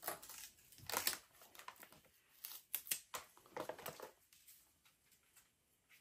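Old packaging crinkling and rustling in irregular bursts as a stiff, long-coiled flamethrower hose is worked out of it, dying away to a few faint handling ticks after about four seconds.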